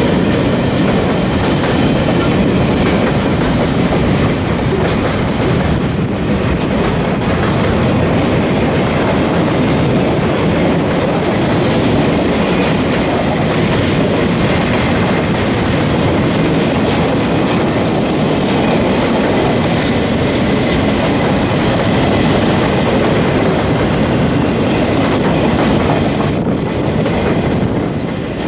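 CSX GE Evolution-series diesel locomotives running as a freight train rolls past, with their engine noise mixed with the steady rumble and clatter of wheels on the rails. The sound stays loud and even, easing slightly near the end.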